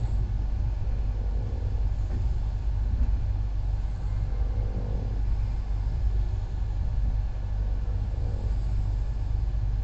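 Steady low rumble of a moving passenger train, heard from inside the coach at an open window, with no clear rhythm of wheel clacks.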